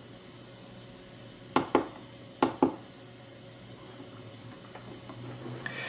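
Push buttons on a DSO150 handheld digital oscilloscope clicking as they are pressed: two quick pairs of sharp clicks, the first pair about a second and a half in and the second just under a second later.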